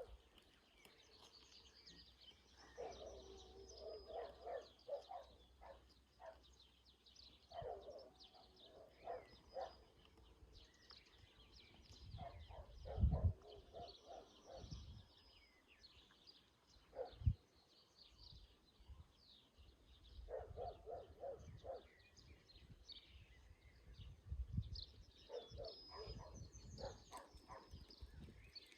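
Small birds chirping and twittering throughout, with short bursts of lower, rapid calls from another animal every few seconds and a few soft thumps.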